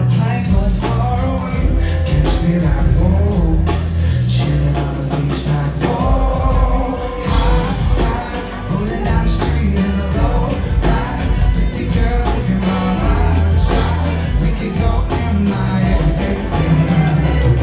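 Reggae band playing live through a PA: heavy bass, drums and guitar, with a sung vocal line over it.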